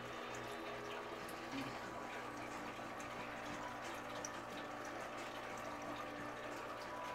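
Steady aquarium water trickling, with a low steady hum and faint scattered ticks.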